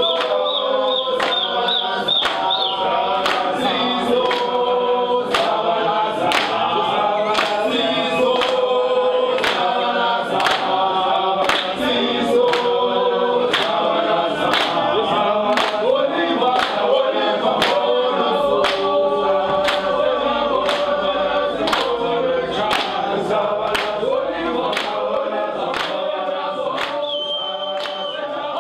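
A group of voices singing together in harmony, kept to a steady sharp beat of about three strokes every two seconds.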